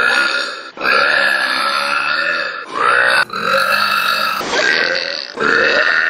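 A young woman's burps, several long ones one after another with brief breaks between them.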